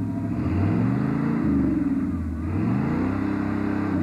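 Stock Chevrolet 350 V8 in a Jeep CJ mud truck revving twice, its pitch climbing and dropping back each time.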